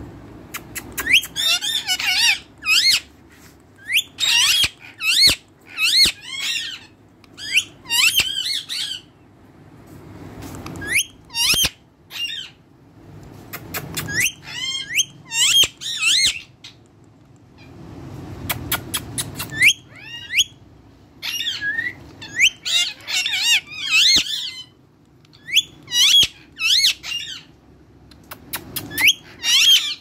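Indian ringneck parakeet making loud, high-pitched squawking chatter, in clusters of quick calls that glide up and down in pitch, with short pauses between the clusters.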